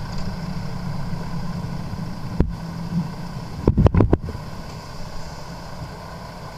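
Vehicle running with a steady low rumble. One sharp thump comes about two and a half seconds in, and a quick burst of several louder thumps around four seconds in.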